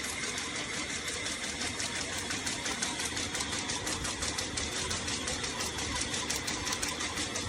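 Production machine running with a rapid, regular clicking, about five or six a second, over a steady high whine.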